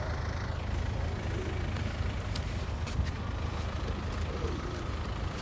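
City street background: steady traffic noise with a low rumble, with a few faint clicks.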